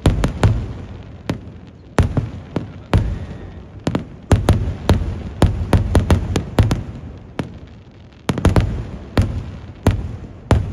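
Fireworks display: aerial shells bursting overhead in rapid, irregular clusters of loud bangs, several a second, each with a short rumbling tail, with brief lulls between the volleys.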